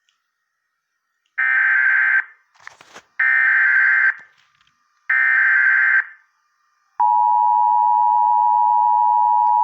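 Emergency Alert System header: three short bursts of warbling data tones about two seconds apart. About seven seconds in, the steady two-tone attention signal starts. Together they announce a National Weather Service severe thunderstorm warning.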